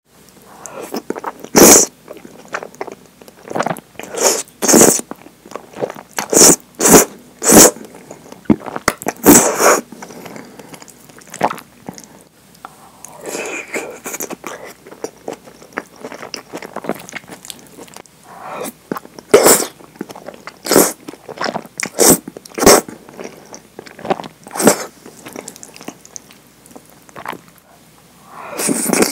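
Close-miked eating of thick curry udon: repeated loud, short slurps of the noodles, with quieter stretches of wet chewing between.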